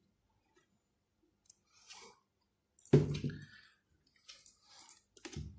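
A plastic toy ATM piggy bank being handled and set down on a table: one sharp knock about three seconds in, a smaller knock near the end, and faint rustling in between.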